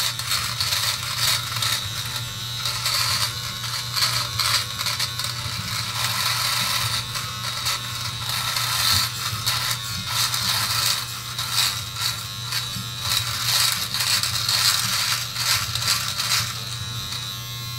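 Braun All-in-One Series 5 trimmer with its foil shaver head running: a steady electric buzz, with a rasp that comes and goes as the foil cuts stubble on the cheek. Pretty noisy.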